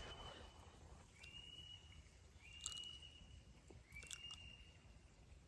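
Faint outdoor quiet in which a small animal gives a short, high call over and over, about once every second and a half; each call rises slightly and then holds. A couple of faint clicks come in between.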